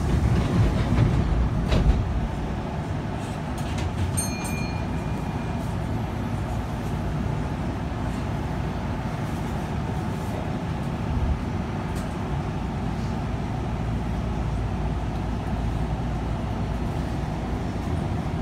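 Inside the front car of a Kintetsu electric commuter train: a steady low rumble of the train. There is a knock about two seconds in and a brief high steady tone about four seconds in.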